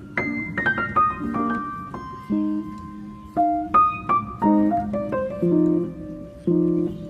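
Background music: a light piano or keyboard tune, single notes in a descending melody over low chords.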